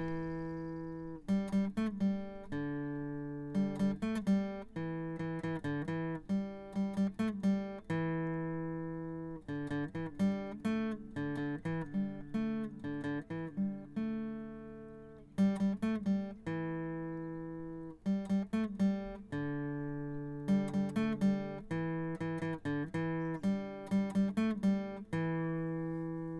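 Solo acoustic guitar music: short runs of plucked notes alternating with chords left to ring out and fade.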